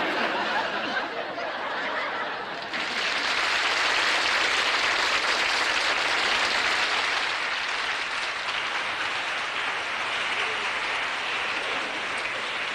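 Studio audience laughing and applauding, the applause swelling fuller about three seconds in and holding steady.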